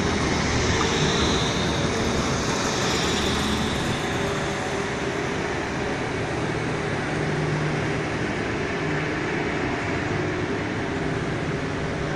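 Modern low-floor electric tram running past close by on street rails and moving away: a steady rumble of wheels and traction motors with a faint high whine, easing slightly after the first few seconds.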